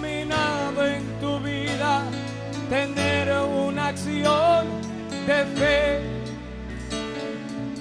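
Live Christian worship music: a man singing a melody into a microphone over a band with a steady bass line.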